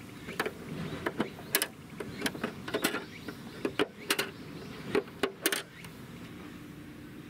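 Plastic doors of a toy garage being pushed open one after another: a run of short plastic clicks and clacks, some in quick pairs, as each door flips down into a ramp. The clicks stop about a second and a half before the end.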